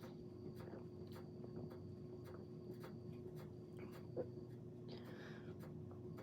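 Quiet room tone: a steady electrical hum with faint scattered clicks, a soft short knock about four seconds in and a brief breathy hiss about a second later.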